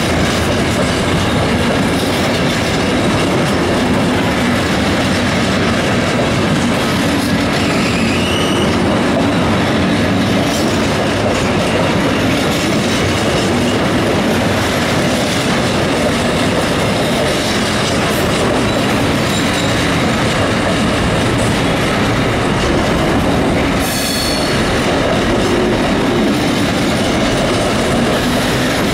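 Container freight train's wagons rolling past close by, a steady loud rumble and clatter of wheels on the rails. A couple of brief high wheel squeals come through, about eight seconds in and again near the end.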